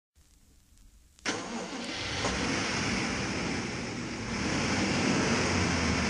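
Intro sound effect of a mid-1980s electro rap record: after a second of faint crackle, a loud rushing noise with a low rumble cuts in suddenly and carries on steadily, slowly building.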